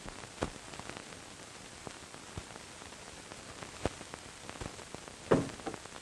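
Steady hiss of an old optical film soundtrack with scattered crackle, and a few knocks from a closet being rummaged through: sharp ones about half a second in and just before four seconds, and the loudest, a bump, about five seconds in.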